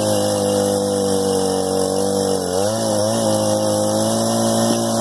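Small two-stroke top-handle chainsaw running at high revs, its pitch dipping and recovering briefly about halfway through as it takes load.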